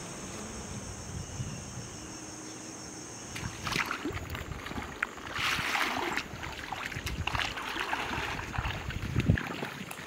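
Rubber boots wading through shallow river water: uneven sloshing and splashing steps that start about three and a half seconds in. Before them, a steady hiss with a high, even drone over it.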